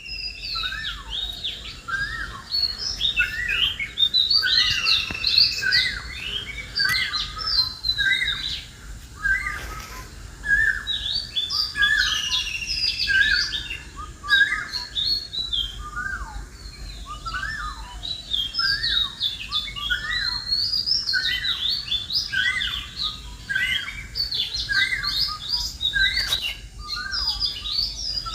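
Many birds chirping together: a dense, unbroken chorus of short, overlapping chirps.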